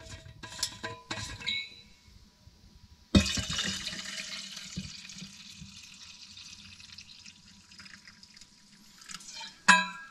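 Liquid poured from a bottle into an insulated tumbler: a steady pouring rush that starts suddenly about three seconds in and fades out after about six seconds. A few short clicks come before it, and a loud knock comes near the end.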